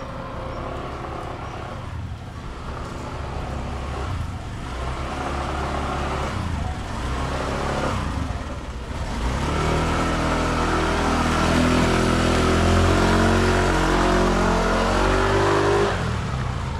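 A motor vehicle's engine running and revving, with its pitch rising and falling and growing louder about two-thirds of the way through.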